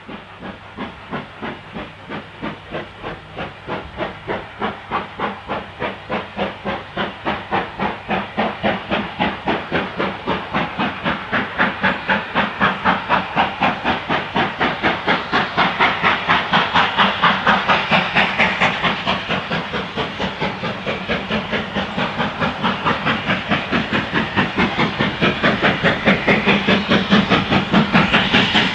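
GWR Manor class 4-6-0 steam locomotive No. 7822 Foxcote Manor working hard with a short train, its two-cylinder exhaust beating in a steady rhythm and growing louder as it approaches, over a hiss of steam.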